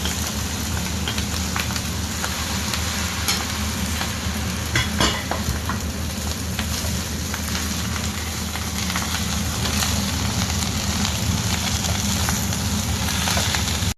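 Egg fried rice sizzling in a pan as it is stir-fried, with a few short clicks of the spatula, over a steady low hum.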